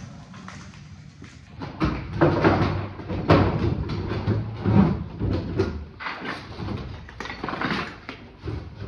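A heavy wooden door in its frame being lifted and shifted in a pickup truck bed: from about two seconds in, repeated knocks and scraping of wood against the truck.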